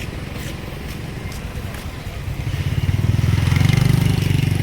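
A motor vehicle's engine running, growing louder from about halfway through and loudest near the end.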